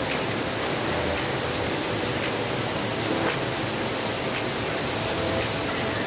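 Steady hiss of seafood soup base boiling hard in a stainless steel pot on a gas burner.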